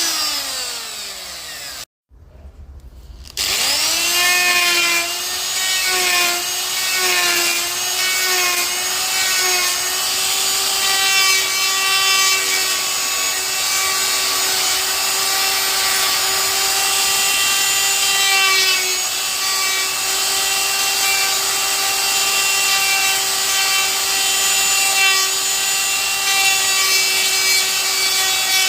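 Milwaukee M12 cordless die grinder carving black walnut. Its whine falls and stops about two seconds in, starts up again a second later with a rising pitch, then wavers as the bit bites into the wood before settling into a steady whine over a rasping grind.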